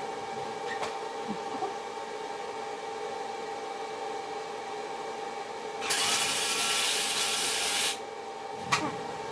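A wire-feed (MIG) welder's arc hissing and crackling in one steady burst of about two seconds, starting about six seconds in, over a steady background hum.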